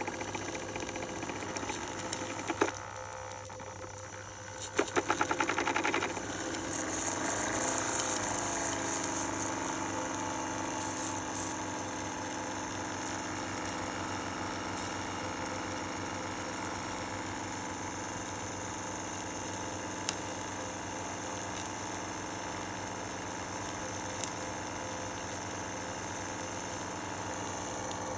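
Tribute 2.5 cc V4 model steam engine running on steam. About five seconds in there is a short burst of fast, loud beats; the pitch then shifts and settles, and the engine runs smoothly at a steady speed.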